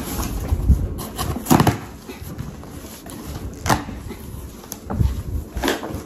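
Cardboard shipping box being torn open and its flaps pulled back, with a handful of sharp tearing and knocking sounds; the loudest comes a little after a second in.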